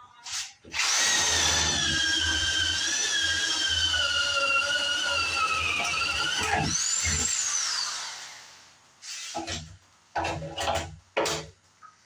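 Corded electric drill boring a hole through a wooden wall stud for wiring. The motor's whine runs loud for about six seconds, its pitch slowly sagging under load, then briefly rises and winds down as the trigger is let go. A few short bursts follow near the end.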